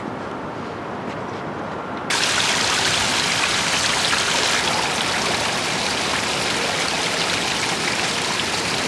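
Steady hiss of water, which becomes suddenly louder and brighter about two seconds in.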